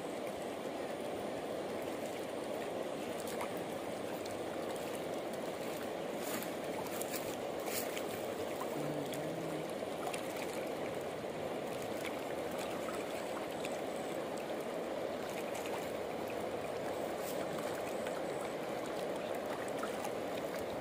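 Steady rushing of a wide, fast-flowing river.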